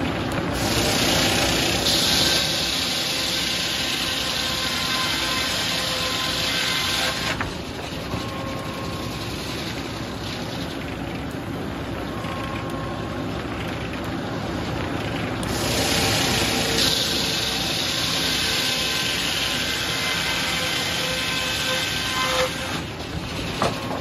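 Large circular sawmill head saw sawing hard maple. It makes two cuts of about seven seconds each, each a loud hissing rip, and runs more quietly while the blade spins free between them.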